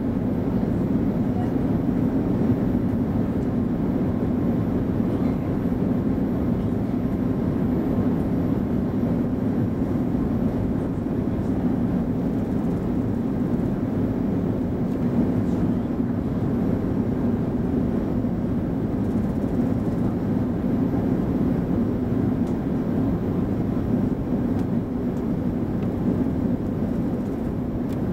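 Steady cabin drone inside an Airbus A340-300 descending on approach: engine noise and airflow over the fuselage, an even low hum with no changes.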